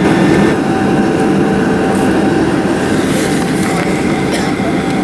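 Cabin noise inside a Boeing 737-800 taxiing: its CFM56-7B turbofans running at low thrust with a steady whine, over a rumble from the aircraft rolling along the taxiway.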